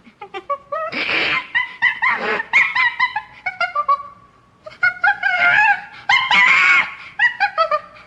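Monkey screaming: rapid runs of short, high-pitched calls that bend up and down in pitch, broken by louder screams about a second in, around five seconds and again about six and a half seconds in, with a brief lull near the middle.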